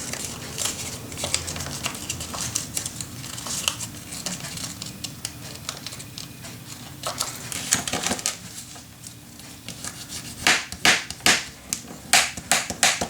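Paper being scored on a scoring board: a scoring tool run along the board's grooves to crease fold lines, with many short clicks and taps, loudest and densest near the end.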